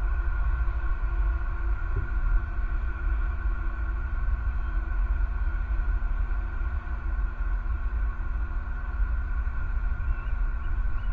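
Steady outdoor night ambience on a nest-cam microphone: a continuous low rumble with steady droning hums above it, and one faint short high chirp near the end.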